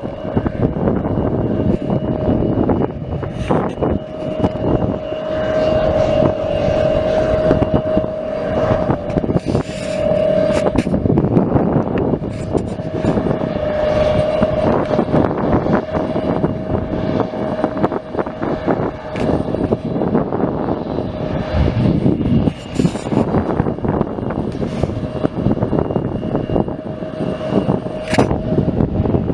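Airplane engines running: a steady roar with a held tone through it, lasting the whole stretch.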